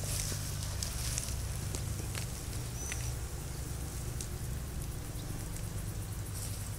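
Light crackling rustle of dry grass as a young European hedgehog moves through it, over a steady low rumble of wind on the microphone. One short high chirp about three seconds in.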